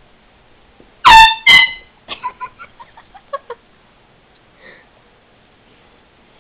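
An air horn blasts twice in quick succession, each blast short, very loud and steady-pitched. A rapid string of short high-pitched sounds follows.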